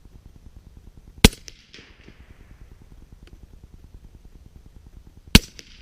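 Two suppressed rifle shots from a .300 Blackout rifle firing 220-grain Remington rounds through an AAC suppressor, about four seconds apart. Each is a sharp report with a short fading tail, much quieter than an unsuppressed shot.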